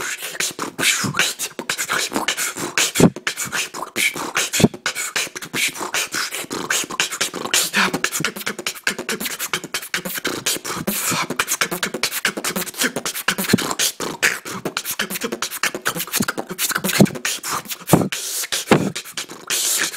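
Human beatboxing: a fast, unbroken stream of mouth-made hi-hat hisses and snare clicks, with a few deep kick-drum strokes.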